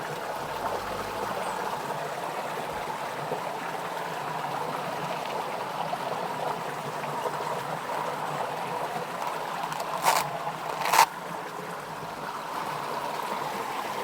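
Stream water running steadily, with two short loud noises about a second apart near the end.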